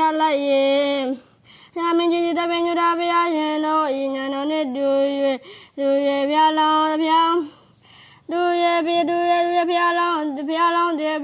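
A single voice singing a Burmese Buddhist sermon in the melodic recitation style, in long held notes that step up and down, phrase by phrase, with short breaths about a second, five and a half and seven and a half seconds in.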